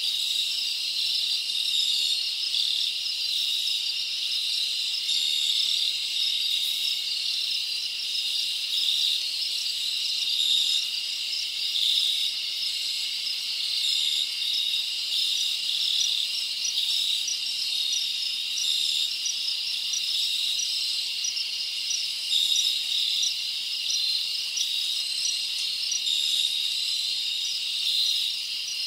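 Steady, unbroken chorus of chirping insects, many overlapping in a fast, even pulsing.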